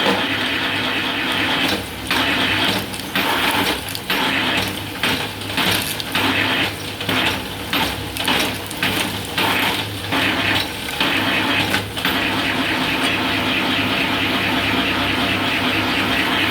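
Bamboo satay-skewer making machine running with a steady motor hum. From about two seconds in until about twelve seconds, its sound dips and surges in a regular rhythm, roughly three times every two seconds.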